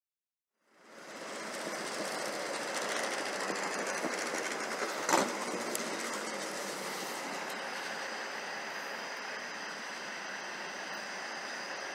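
Silence for about the first second, then a steady rushing road noise of a vehicle moving, with one sharp knock about five seconds in.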